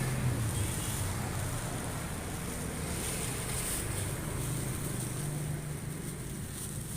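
Vertical pellet machine's motor running steadily with a low hum.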